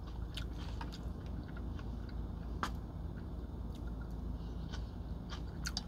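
Someone eating with a fork: a fork scraping through salad, then biting and chewing, with scattered small clicks of the fork, the sharpest about two and a half seconds in. A steady low hum runs underneath.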